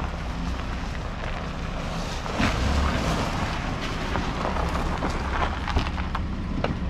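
Jeep Grand Cherokee driving slowly over a gravel drive and pulling up to a stop, its engine running and its tyres on the gravel, with wind on the microphone.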